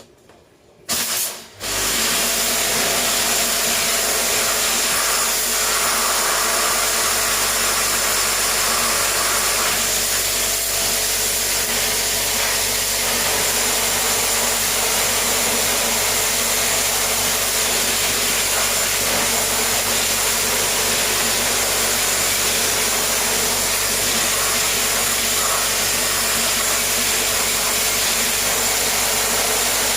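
A motor-driven cleaning machine starts about a second and a half in, after a brief blip, and runs steadily: a loud, even hiss over a low motor hum.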